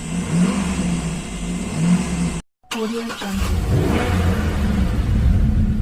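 Car engine running, then revving with a low rumble and rising and falling pitch after a brief silent break about two and a half seconds in.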